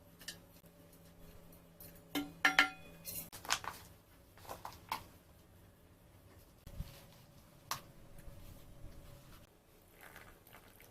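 Dishes and kitchenware being handled and set down: scattered clinks and knocks, the loudest cluster about two and a half seconds in with a brief ringing tone, then lighter knocks and a dull thump.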